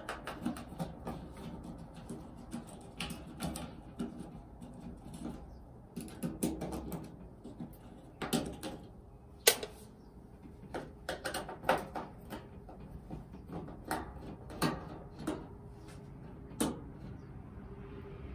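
Phillips screwdriver backing out the screws that hold a front-load washer's top lid, with scattered irregular clicks and taps of the tool and screws against the plastic bracket and cabinet; the sharpest click comes about halfway through.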